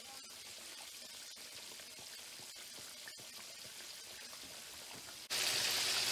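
Breaded chicken breasts deep-frying in hot oil over medium heat: a steady sizzle with scattered small crackles and pops, turning abruptly louder about five seconds in.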